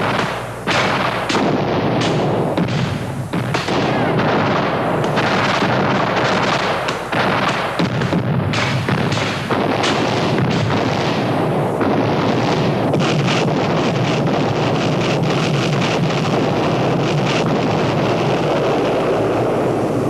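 Battle-scene gunfire: many sharp rifle shots over a steady din of shooting and explosions, unbroken throughout and thickest in the second half.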